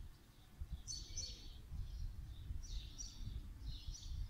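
Small birds chirping in several short, high phrases over a low, uneven outdoor rumble.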